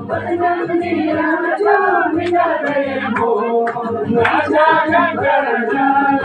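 A group of voices, mostly women's, singing a song together in unison, with a few short sharp clicks in the middle.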